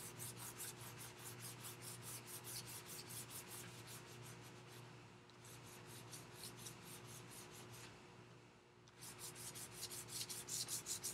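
Faint scratching of a white compressed charcoal stick rubbed back and forth over black paper in quick strokes, about five a second, stopping briefly twice and picking up again near the end.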